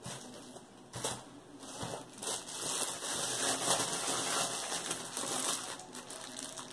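Clear plastic wrapping crinkling and rustling as a lump of red modelling paste is handled in it, a dense run of small crackles starting about a second in.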